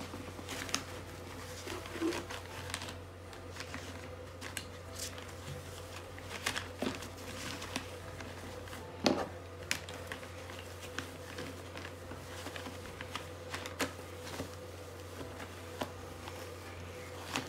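Small plastic toy pieces clicking and a fabric pouch rustling as they are handled, packed in and folded, in scattered short taps with a few sharper clicks, over a steady low hum.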